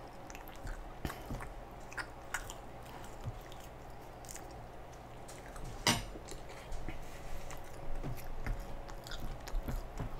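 Close-miked mouth sounds of a man chewing a mouthful of pizza: soft, wet chewing with scattered small clicks, and one sharper click about six seconds in.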